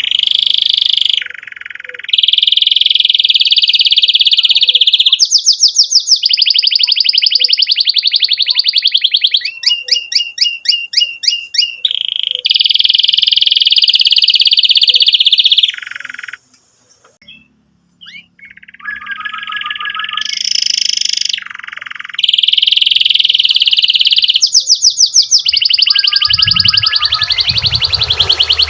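Domestic canary in full, excited song: long rolled trills alternating with fast repeated chirping phrases, loud and almost unbroken, with one short pause a little past halfway.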